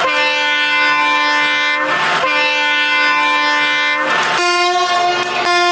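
Locomotive horn giving two long blasts, then two shorter blasts at a higher pitch, with a brief rush of noise between the long blasts. This is the two-long, two-short code that a train at a halt sounds for an engine problem, calling the guard forward to the engine.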